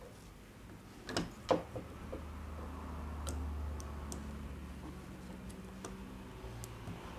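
Plastic and metal parts clicking and knocking as a plastic carriage, steel guide rods and a stepper motor are handled and pressed together. There are two sharp clicks about a second in, then lighter scattered ticks over a low steady hum.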